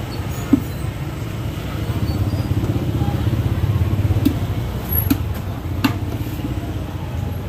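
Outdoor street-market background: a steady low motor-vehicle engine rumble that swells in the middle and eases off, with a few short sharp knocks scattered through.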